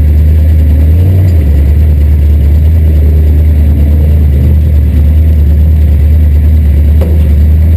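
IMCA sport mod race car's 355 crate V8 running, heard from the cockpit as a very loud, steady low drone, with a brief change in its note about a second in.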